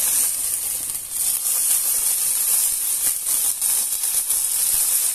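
Very hot soybean oil poured over the oven-dried skin of a pork knuckle, sizzling and crackling steadily as the skin blisters into crackling (pururuca).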